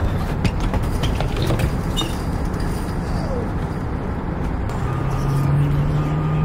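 Outdoor motor-vehicle noise: a low, uneven rumble, joined about five seconds in by a large vehicle's steady engine hum and a faint high beep repeating about once a second.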